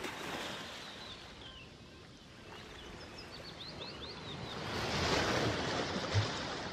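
Ocean surf washing in, swelling to its loudest about five seconds in, with a quick run of short bird chirps just before. This is the nature-sound layer of an added relaxing background track.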